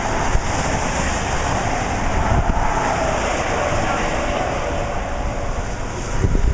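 Wind buffeting the microphone over the steady noise of traffic on the interstate, with a faint tone that falls slowly through the stretch.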